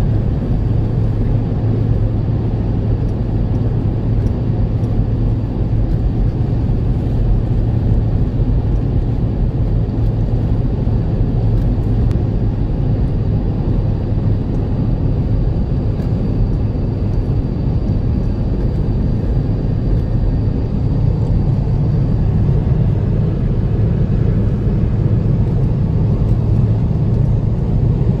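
Steady engine and road noise of a four-wheel-drive vehicle cruising along a sealed highway, heard from inside the cab as an even low rumble.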